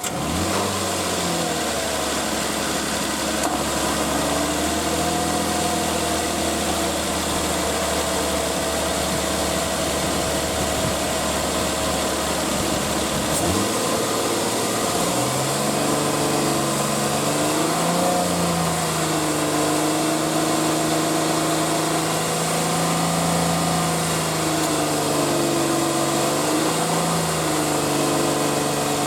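Nissan Elgrand E51's VQ25DE V6 engine running just after starting, with its air-conditioning compressor, which the owner says makes an abnormal noise from about 2500 rpm that two replacement compressors have not cured. About 14 seconds in the engine note steps up and holds higher, wavering a few times.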